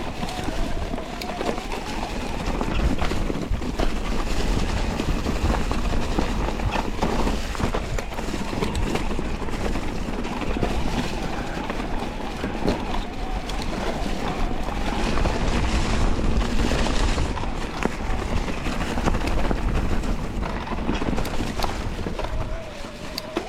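Electric mountain bike ridden fast down a dirt trail: tyres rolling over dirt and stones, wind on the microphone and frequent rattles and knocks from the bike. The assist motor's thin, wavering whine is heard at the start and again near the end.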